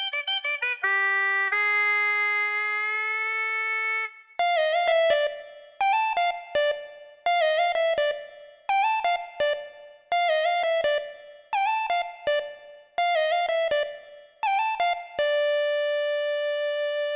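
Unaccompanied cumbia villera synthesizer keyboard lead. A held note bends slightly upward. Then a short phrase with pitch bends repeats about every second and a half, eight times, and the line ends on a long held note near the end.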